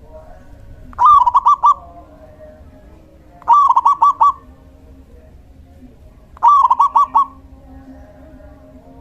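Male zebra dove singing: three short phrases, each a quick run of four or five cooing notes, about every three seconds.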